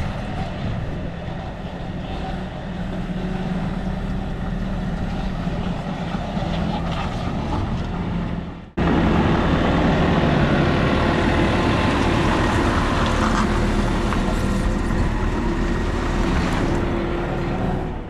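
Hyundai HT100V skid steer's diesel engine running steadily while warming up. It breaks off abruptly about nine seconds in and comes back louder.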